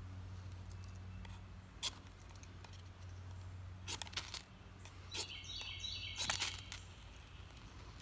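Keychain ferro rod scraped with the spine of a Victorinox Fieldmaster saw blade in short, sharp strokes: one stroke about two seconds in, a few around four seconds, then a quick run of strokes between five and six and a half seconds. These are the spark strikes that light the fatwood scrapings.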